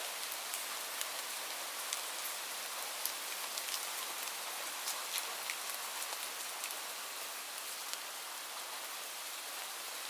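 Light rain falling steadily, a soft even hiss with many small, separate drop ticks scattered through it.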